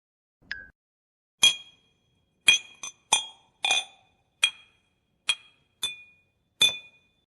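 A short click with a brief tone, then a series of about nine sharp glassy clinks at uneven intervals, each leaving a short bright ring.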